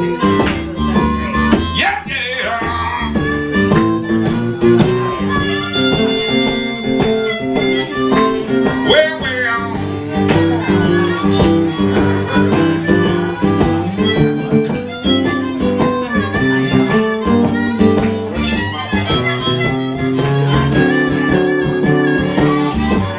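Live blues duo: a harmonica played cupped in the hands at a microphone leads over a strummed acoustic guitar keeping a steady rhythm.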